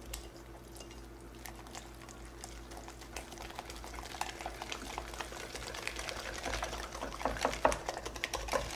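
Wire balloon whisk beating Yorkshire pudding batter in a glass measuring jug: rapid clicking of the wires against the glass with a wet stirring of the batter. The whisking gets faster and louder over the last couple of seconds.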